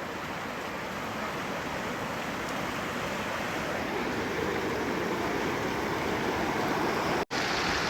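Steady rush of running water, a stream or river flowing, growing slightly louder, with a brief cut-out near the end.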